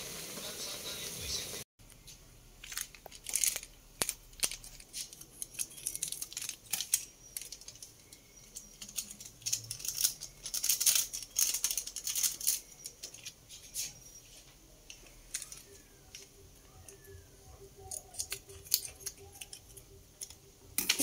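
A steady hiss from the pan of noodles in hot water, cut off after about two seconds. Then comes a long run of sharp crinkles and snips: plastic seasoning sachets crackle, are cut open with scissors, and the chilli powder is shaken out of them.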